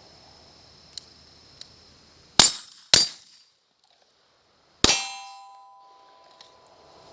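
Three gunshots, the first two about half a second apart and the third about two seconds later. The third is followed by the ringing of a struck steel target, which dies away over about a second and a half.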